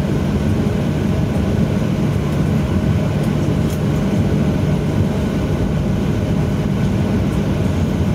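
Steady low rumble inside the cabin of a Boeing 737-800 moving along the runway, from its CFM56 jet engines and wheels, with a few steady low hum tones in it.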